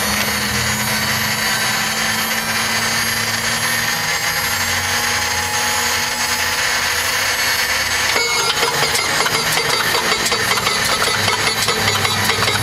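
Continental W670 seven-cylinder radial engine being started: a steady starter whine for about eight seconds, then the engine catches and runs with a rapid, uneven clatter of firing strokes.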